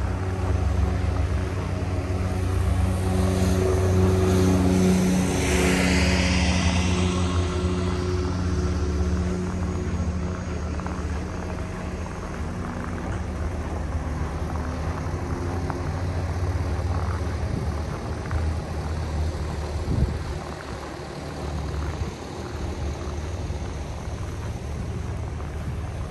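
A motor vehicle engine running with a steady low hum, and a brief hissing rush about five or six seconds in. A single sharp knock comes about twenty seconds in.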